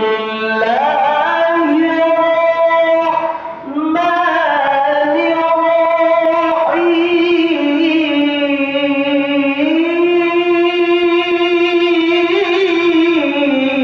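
Solo melodic Quran recitation (tilawah): one man's voice sustaining long, ornamented melismatic notes. A short phrase breaks for a breath about four seconds in, then a second, much longer held phrase follows.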